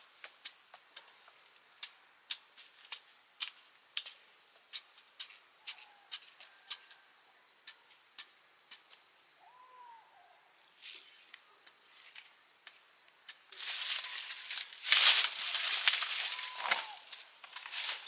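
Sharp clicks or taps, about two a second, over a steady high insect drone, with a few short chirps; then about four seconds of loud rustling and crunching of plant material near the end.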